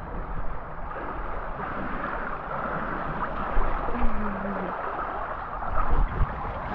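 Swimming-pool water splashing and lapping close to a camera held at the surface as a swimmer moves through it, with a few louder bumps near the middle and the end.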